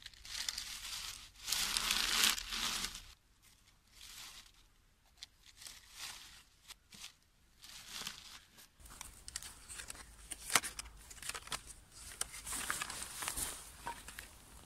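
Dry reed stems rustling and crackling as they are pushed by hand into a wooden frame and packed tight into a panel. The rustling is loudest in the first three seconds, then comes as scattered crackles and clicks, with one sharp click about ten seconds in.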